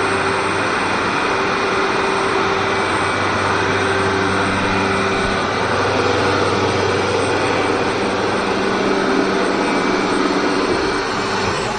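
Pratix CNC router running: a steady rushing, whirring machine noise with several held tones, easing slightly near the end.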